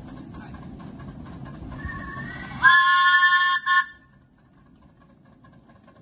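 Miniature steam locomotive's whistle: it starts softly, then a loud blast of about a second, followed by a short toot. A steady rushing noise runs beneath until the loud blast begins, and it is much quieter after the whistle.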